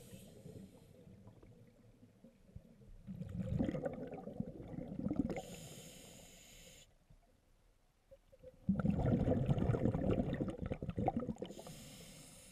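Scuba diver breathing through a regulator, heard underwater: a short hiss on each inhale and a longer gurgling burst of exhaust bubbles on each exhale, about two full breaths.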